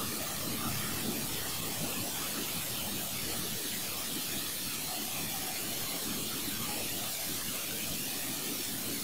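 Steady, even hiss of background noise, with no distinct sounds standing out.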